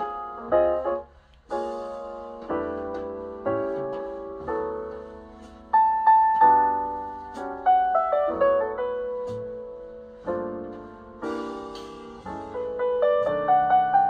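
Piano music played back through a Yamaha AX-592 stereo amplifier and small Onkyo speakers: notes and chords struck one after another and fading, with a brief pause about a second in.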